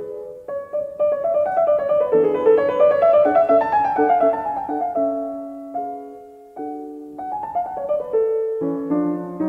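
Piano music: quick runs of notes and chords, thinning briefly to a few held notes about two-thirds of the way in before picking up again.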